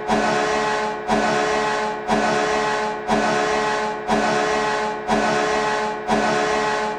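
Notre Dame Fighting Irish hockey goal horn blasting a chord of several tones, pulsing about once a second, each pulse starting sharply and fading slightly.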